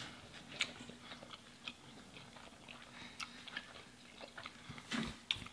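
Faint chewing and wet mouth sounds of a person eating, with small scattered clicks. A few are a little louder near the end.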